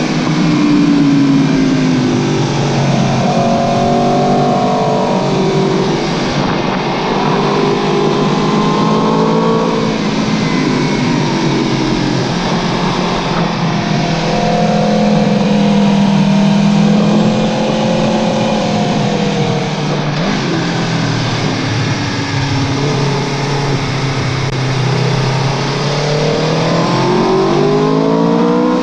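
Aprilia Tuono V4 1100 Factory's V4 engine running through an Akrapovic exhaust, the note rising and falling several times as the bike accelerates and eases off.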